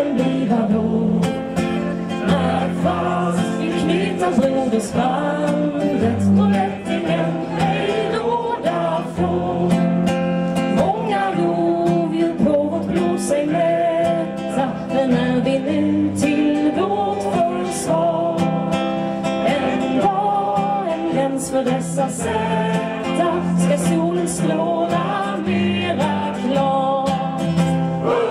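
A song performed live: singing with a strummed acoustic guitar, over a steady low note, amplified through a PA.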